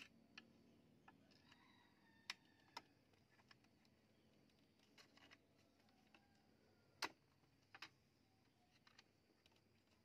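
Faint, scattered clicks and ticks of a thin steel spear shaft being laid into and pressed along the grooved wooden barrel of a homemade spear gun, the sharpest click about seven seconds in.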